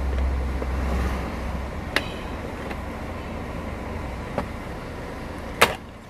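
Plastic trim clips on a Toyota Avalon's steering column cover snapping loose as the panel is pried off with a small tool: three sharp clicks, the last and loudest near the end, over a low steady hum.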